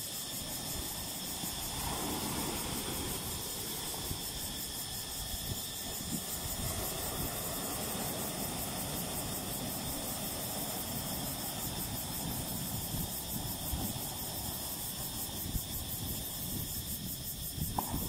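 Small sea waves breaking and washing in over rocks and sand: a steady rushing surf with no single big crash.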